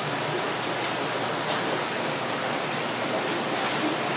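Steady rushing noise, like running water or a busy hall's background hiss, with one faint click about a second and a half in.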